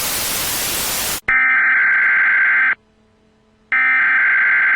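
Television static hiss for about a second, cutting off into a loud electronic broadcast-interruption alert tone that sounds in long beeps, each about a second and a half long with a gap of about a second between.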